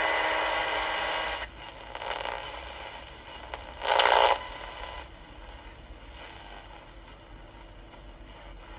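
Unitra Eltra Donald MOT-763 pocket radio on the medium-wave band, giving only static hiss and interference with no station. The hiss is loud at first and drops after about a second and a half. A short loud burst of noise comes about four seconds in, then fainter hiss.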